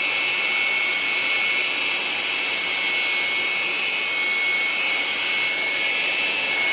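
TOTAL TB2046 400 W electric aspirator blower running in vacuum mode: its motor and fan give a steady, loud rush of air with a high, even whine.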